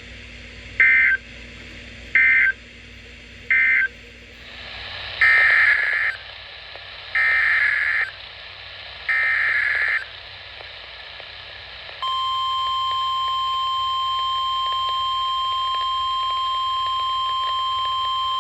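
Emergency Alert System broadcast tones from NOAA Weather Radio. First come three short bursts of warbling digital data, the SAME end-of-message code closing the previous warning. Then three longer data bursts, the SAME header announcing the next alert. About twelve seconds in, the steady single-pitch warning alarm tone begins and holds.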